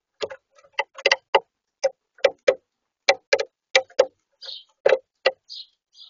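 Common starling pecking at suet pellets in a plastic feeder tray: an irregular run of sharp taps, about two a second, close to the feeder's microphone. Soft high chirps come in over the last second and a half.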